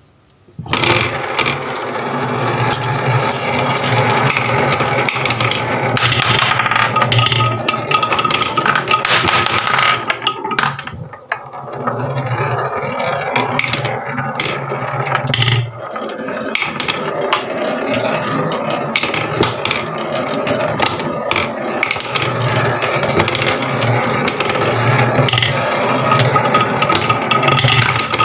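Marbles rolling and clattering down a HABA wooden marble run: a continuous dense rattle of many small clicks and knocks, easing briefly twice, with a steady high tone underneath.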